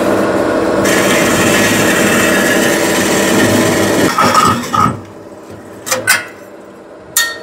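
Vertical bandsaw cutting through a metal snowmobile expansion-chamber exhaust pipe: a steady harsh rasp of the blade in the pipe over the saw motor's hum, ending about five seconds in as the section comes off. A few short metal clinks follow near the end as the cut piece is handled.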